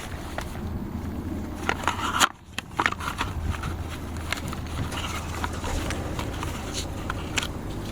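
Scattered clicks, taps and light scrapes of tools and metal parts being handled during motorcycle maintenance, over a steady low hum.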